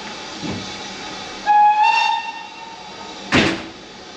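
A steam locomotive's whistle sounds once, a single tone sliding slightly upward for about a second. A sharp clank follows near the end.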